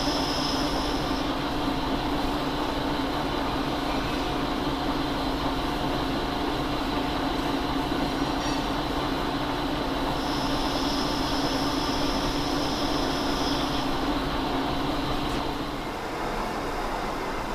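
Engine lathe running with a steady mechanical hum, turning a heavy steel shaft. A high thin whine comes in briefly at the start and again for a few seconds past the middle. The hum dies down about a second and a half before the end.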